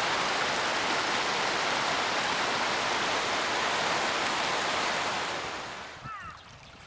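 Rushing water of a mountain stream, a steady dense rush that fades away over about half a second near the end, leaving a much quieter background.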